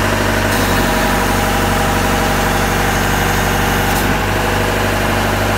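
Engine of a boom lift running steadily. From about half a second in until about four seconds in, a brighter hiss is added on top.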